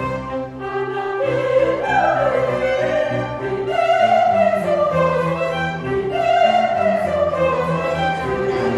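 Classical orchestral music with a solo operatic voice holding long, gliding notes over strings.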